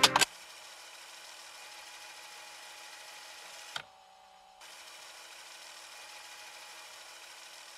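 Music cuts off at the start, leaving a faint steady hum with several thin high whining tones. A click a little under four seconds in is followed by under a second of silence, then the hum resumes.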